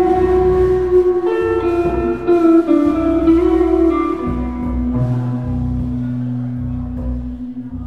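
Live rock band playing, led by an electric guitar. The guitar plays a melodic line of sustained notes that steps downward, then settles on a long held note about four seconds in over a steady bass note.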